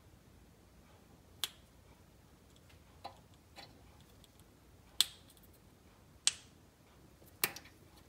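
Greased brake caliper guide pin being pushed and worked into its rubber-booted bore in the caliper bracket, giving about six sharp clicks and pops, irregularly spaced a second or so apart.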